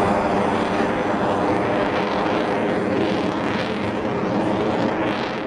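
Jet noise from an F-22 Raptor's twin Pratt & Whitney F119 turbofans as it flies overhead: a steady, loud roar with a hiss that sweeps up and down in pitch, easing slightly toward the end.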